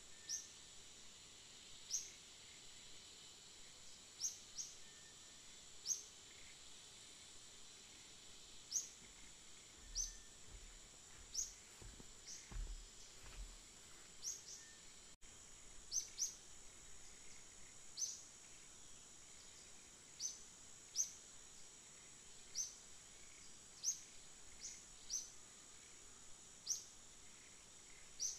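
Faint forest ambience: a steady high-pitched insect whine, with short high chirps repeating about every second or so, and a few soft low bumps around the middle.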